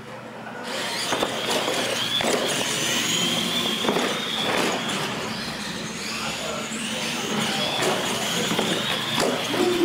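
Electric R/C monster trucks racing, with a high motor whine that rises and falls with the throttle over steady tyre noise. Several sharp knocks come as the trucks hit ramps and land.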